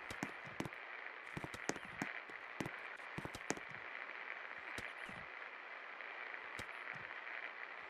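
56-inch Paradise industrial ceiling fan running with a steady airy hiss, broken by scattered irregular clicks and crackles.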